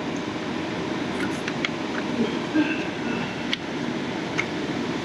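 Steady mechanical running noise with a few light clicks and knocks through it.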